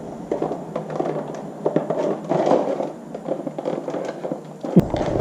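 Irregular rustling and handling noise, with small crackles and taps and one sharp click near the end.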